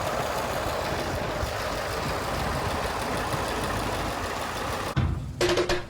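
A motor vehicle's engine running steadily for about five seconds, then cutting off abruptly. Marimba-like music starts just before the end.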